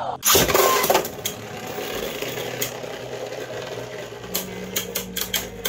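Beyblade Burst spinning tops launched into a clear plastic stadium: a loud whoosh as they land about a third of a second in, then a steady whirr of the tops spinning on the stadium floor, broken by sharp clicks as they clash, more often near the end.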